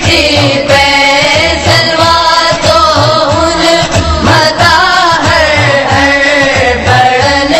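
A male voice sings a Sindhi naat, a devotional song in praise of the Prophet Muhammad, in long melodic phrases over a steady low beat.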